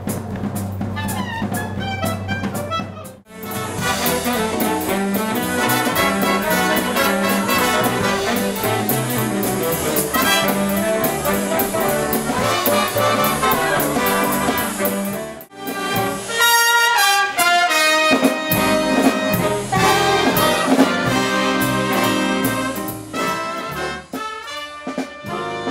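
Big band playing an instrumental swing number, led by the trumpets and trombones, with drum-kit cymbals keeping a steady beat. The music drops out abruptly twice, about three seconds in and again about halfway, then carries on.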